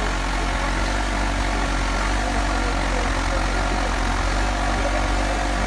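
Diesel engine of a construction machine such as a JCB backhoe loader, running steadily at an even, idle-like pace.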